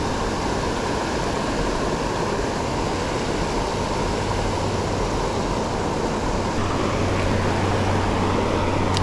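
Steady rush of fast-flowing creek water. A low steady hum joins it over the last couple of seconds.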